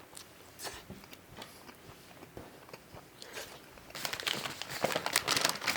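Close-miked chewing of a bacon cheddar hot dog, with scattered soft mouth clicks. About four seconds in, a denser, louder run of crackling and crinkling begins.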